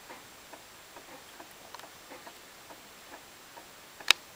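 23KM-K255U stepper motor stepping slowly clockwise: faint, even ticks about two or three a second, with one sharper, much louder click near the end.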